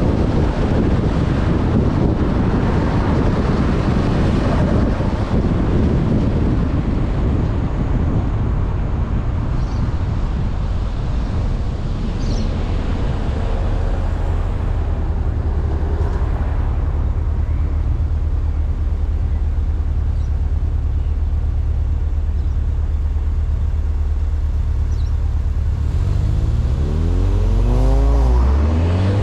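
Turbocharged four-cylinder engine of a VW Golf R MK6 under way, with road noise, louder and rougher at the start, then a steady low drone. About three seconds before the end the revs climb and drop back sharply.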